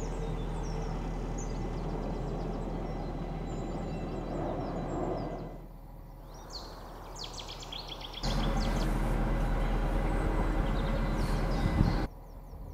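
A narrowboat's diesel engine runs steadily while songbirds chirp over it. A little past the middle the engine drops to a quieter hum for a couple of seconds and the birdsong comes through clearly. Then the engine returns louder and runs on until near the end.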